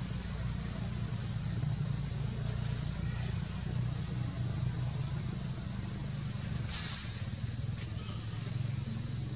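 Forest ambience: a steady, high-pitched insect drone over a low, steady rumble, with one brief scratchy rustle about seven seconds in.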